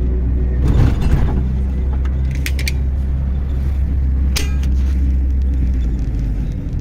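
Steady low rumble of outdoor street ambience, with a few brief clicks and knocks.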